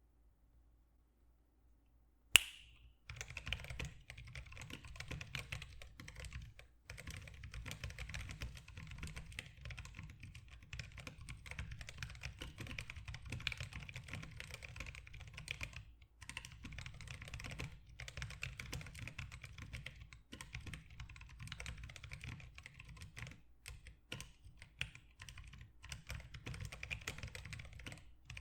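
Fast continuous typing on a Levinson Let's Split split ortholinear keyboard with Zealios V2 62g tactile switches lubed with Tribosys 3203, MDA keycaps and a 3D-printed PLA case. It starts after a short hush and one sharp, loud knock, and pauses briefly twice.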